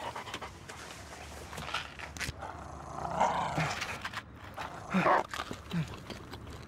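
Dog-like growls in a few short bursts, the loudest about five seconds in.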